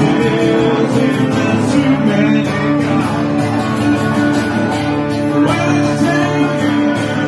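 Live guitar music: an acoustic guitar strummed steadily with an electric guitar playing lead lines over it.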